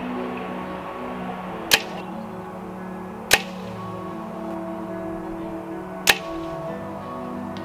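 Compound bow shooting: three sharp snaps of the released string, the first two about a second and a half apart and the third about three seconds later, over steady background music.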